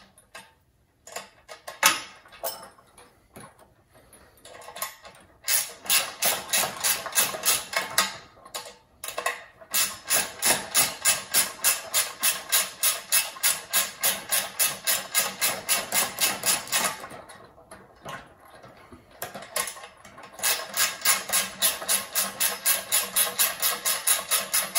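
Ratchet wrench clicking steadily, about four to five clicks a second, as the nut on the tensegrity table's center chain is tightened. It runs in two long stretches with a short break between them, after a few scattered knocks at the start.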